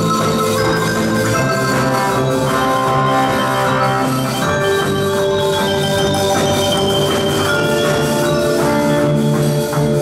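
Percussion ensemble playing live, with marimbas and other mallet keyboards to the fore and a band behind them.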